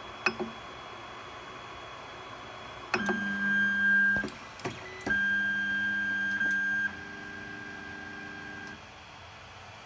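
Creality Ender 3's stepper motors driving the axes home: a steady whine starts about three seconds in, breaks off for under a second with a few clicks, then comes back, dropping to a quieter whine for the last stretch before stopping near the end.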